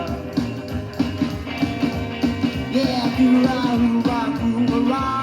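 Instrumental break of a 1980s psychobilly rock song played from a 45 rpm vinyl single: a bending lead line over a steady bass and drum beat.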